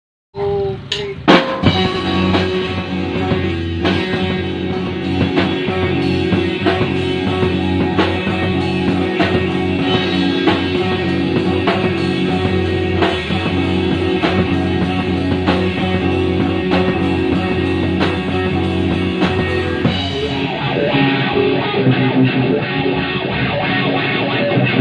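Live rock band playing: drum kit with cymbals under electric guitars. About twenty seconds in, the drums and cymbals drop out and the guitars carry on alone.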